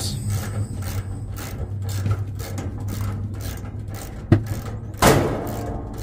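Ratchet wrench clicking in quick runs as a refrigeration unit's brass service valves are turned open after evacuation, over the steady hum of a vacuum pump. A sharper knock comes about four seconds in.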